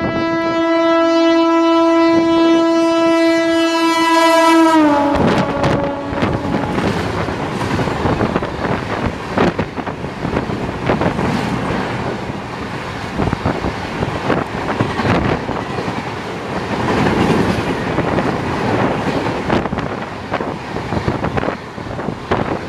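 A WAP-7 electric locomotive's horn sounds one long, loud, steady blast that drops in pitch as the locomotive passes about five seconds in. Then the express's coaches pass at speed, their wheels clattering over the rail joints in a dense run of sharp clicks.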